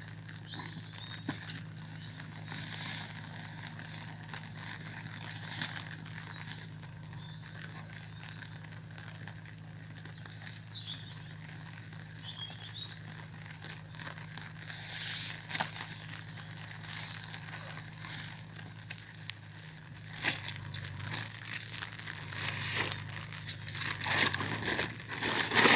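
Nylon bags and tent fabric rustling and crinkling in irregular bursts as a backpack is unpacked, a tent is pulled from its stuff sack and then unrolled on the ground. The rustling grows busier near the end. Small birds chirp now and then over a steady low hum.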